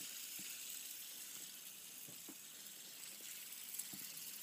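Fidget spinner spinning against the skin of the neck: a faint, steady hissing whir.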